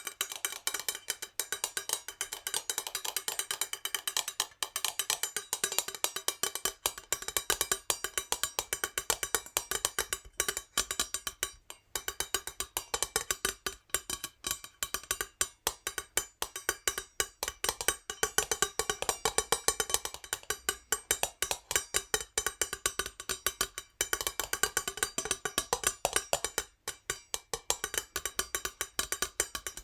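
Natural fingernails tapping fast on a metal jar, a dense patter of sharp clicks with a metallic ring, broken by a few brief pauses.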